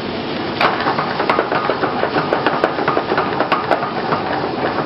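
Prawns in a cream sauce sizzling and popping in a hot pan while being stirred with a spatula: a dense crackle over a steady hiss, thickening about half a second in.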